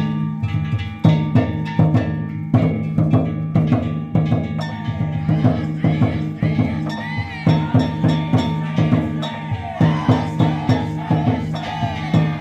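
Danjiri narimono: a taiko drum and small metal hand gongs beating a fast, unbroken rhythm, with a steady low ring underneath.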